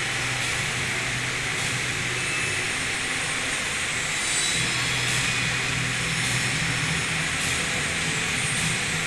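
Steady rushing noise with a low hum under it and faint brief crackles now and then.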